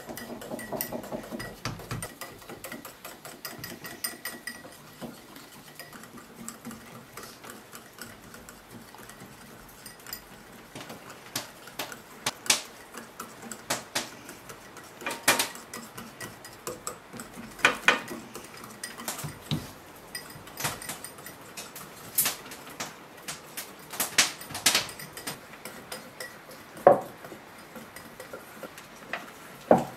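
Kitchen handling sounds at a wooden table: scattered light knocks and taps, with a few sharper clinks in the second half.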